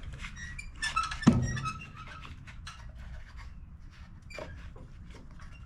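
Metal hand tools clicking and tapping while the ignition coil's mounting screws are tightened on a small engine, with one sharp metallic knock that rings briefly about a second in.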